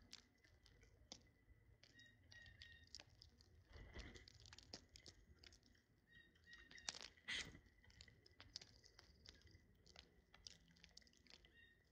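Faint tapping and cracking of small birds pecking and eating seed, with a louder cluster of cracks about seven seconds in, and a few short high chirps.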